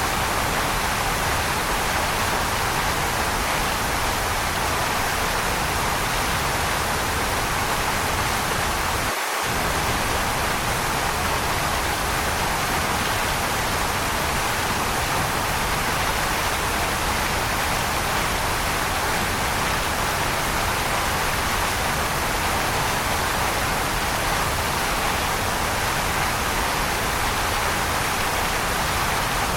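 Waterfall: steady rushing water, an even hiss that holds a constant level, with a momentary drop in the low rumble about nine seconds in.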